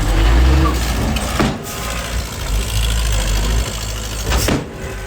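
Diesel engine of earthmoving machinery running steadily, with two short knocks about three seconds apart.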